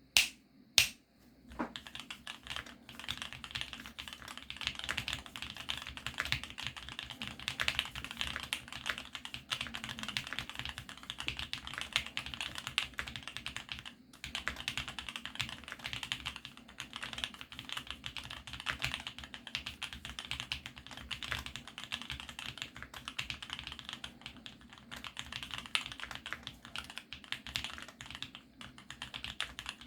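Fast, continuous typing on a GEONWORKS F1-8X full-aluminium, gasket-mounted custom mechanical keyboard with lubed Tealios V2 linear switches fitted with Cherry black top housings. Two loud clacks come in the first second, then a steady stream of rapid keystrokes with a brief pause about halfway through.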